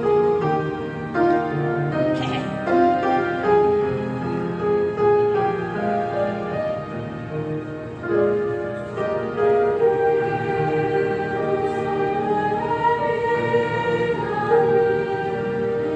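Choir singing a slow hymn in long held notes, with instrumental accompaniment.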